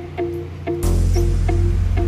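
Background music: short notes repeating at a steady pace, with a deep bass coming in a little under a second in and making it louder.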